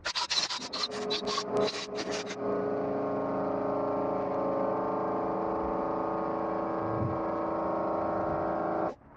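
A shop rag scrubbed back and forth in quick strokes over the exhaust-port face of a Mitsubishi 4G63 cylinder head. After about two and a half seconds a steady hum of several even tones takes over and cuts off suddenly near the end.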